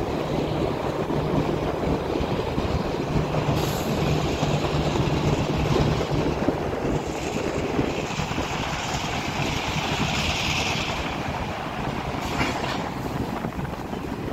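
Freight cars of a passing CN freight train rolling by on the rails, a steady rumble and rattle of wheels and cars, brighter and more hissing in the high range from about seven to eleven seconds in.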